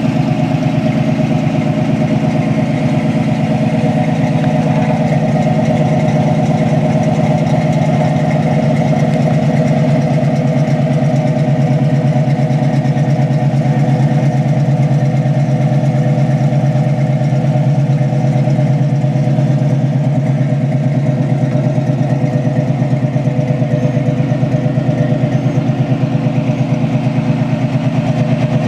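Carbureted 350 small-block V8 crate engine in a 1969 Chevrolet Camaro idling steadily, with an even, rapid pulsing and no revving.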